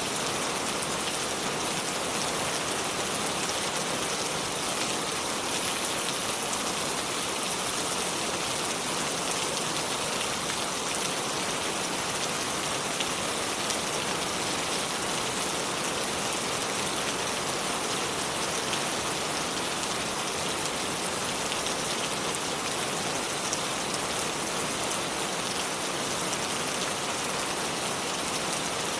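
River water flowing over stones, a steady, even hiss with no pauses or changes.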